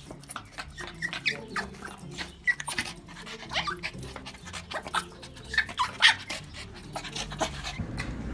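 Small long-haired dog whining in a rapid string of short, high cries as it strains toward a chick held just out of reach.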